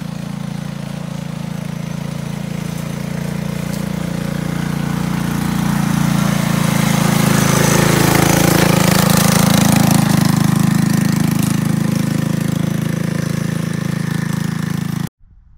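Predator 212 single-cylinder four-stroke engine on a Coleman CT200U minibike running steadily under load while towing a deer on a drag cart. It grows louder as the bike comes close, then stops abruptly near the end.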